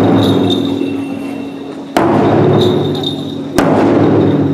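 Large nebuta festival taiko drums struck with long sticks: heavy strikes about two seconds in and again about three and a half seconds in, each ringing out and slowly fading, with the ring of a strike just before still dying away at the start.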